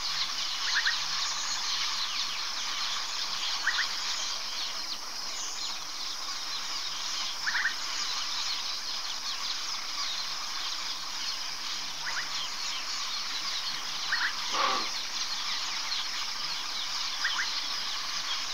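Night insect chorus, a steady shrill buzzing, with a short chirping call every few seconds and one brief call falling in pitch late on.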